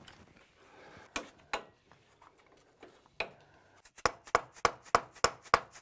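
A few single metal clanks, then from about four seconds in a fast run of ringing hammer blows, about three a second, on the front wheel hub bearing assembly of a GMT800 Chevy Silverado, driving the hub out of the knuckle during a wheel bearing replacement.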